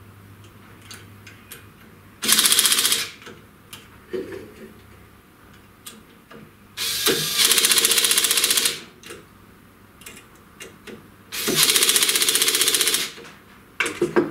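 Cordless impact driver hammering screws into the router's Z-axis mounting plate in three bursts of fast, even rattling, about one, two and one and a half seconds long, with small clicks of handling between them.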